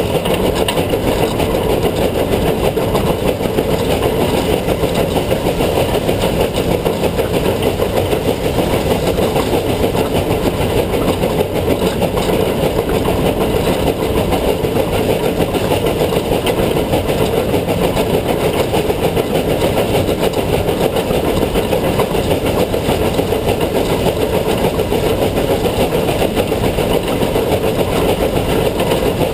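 Steady running noise of a narrow-gauge K-36 steam locomotive (No. 487) rolling along the track, heard from up front at its headlight: an even, continuous rumble of wheels and running gear.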